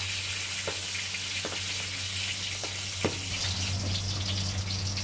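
Smoked milkfish (tinapang bangus) frying in hot oil in a stainless steel pan: a steady sizzle with a few sharp pops, over a steady low hum.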